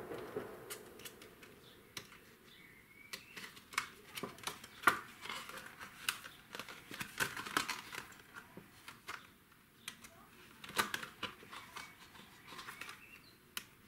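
A thin clear plastic box blank with a protective film being handled and turned over, crinkling with irregular sharp clicks and crackles.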